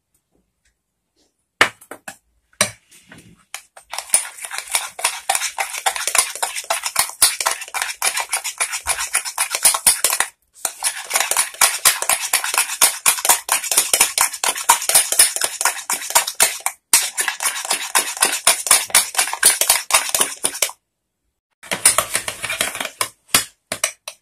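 Metal spoon beating a thick yogurt and gram-flour marinade in a glass bowl, rapid strokes clinking and scraping against the glass. It starts with a few taps, then runs fast and steadily, stopping briefly a few times.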